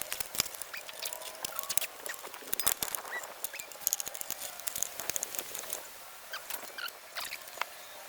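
Irregular small clicks, taps and light rattles of bike parts and tools being handled, with a few short squeaks; busiest in the middle and thinning out near the end.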